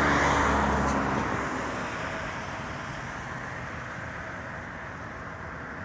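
A motor vehicle's engine, loud at first and fading away over about two seconds, then a steady background hum like distant traffic.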